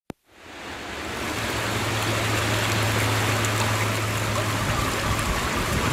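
A steady rushing, hissing noise like flowing water, fading in over the first second after a single click, with a low hum underneath through the middle.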